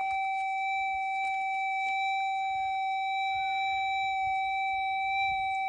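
Metal detector's steady electronic tone, one unbroken pitch that holds level. Faint short chirps and a few light clicks sound over it.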